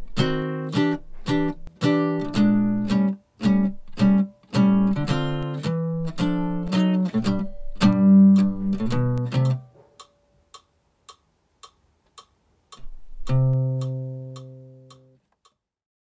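Jazz guitar comping short chords in a steady rhythm, which stop about ten seconds in. A few faint ticks follow, then one final chord rings for about two seconds and cuts off.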